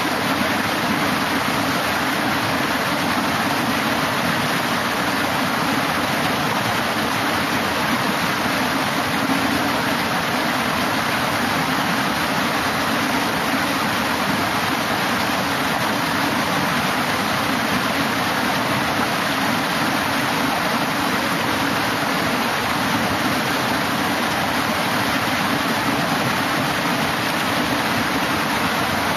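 Water spilling over the stepped weirs of a concrete fish ladder: a steady, even rush of cascading water.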